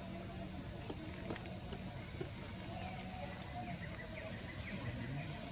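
Forest ambience: a steady high-pitched insect whine, with a few faint short chirps and squeaks scattered through it.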